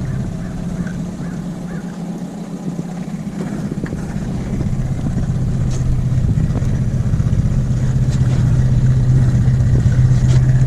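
Boat motor running steadily, its hum growing louder about halfway through.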